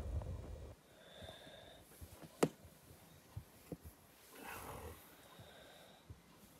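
A sharp click a little before halfway, then a short, soft breathy sound from the cat, over low rumbling from the phone being handled at the start.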